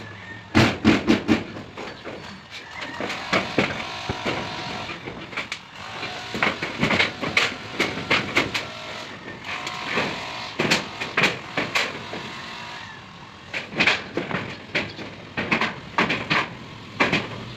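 Irregular clanks, knocks and rattles of corrugated galvanized-iron roof sheets as a worker steps and kneels on them. At times a power drill drives self-drilling tek screws into the sheeting.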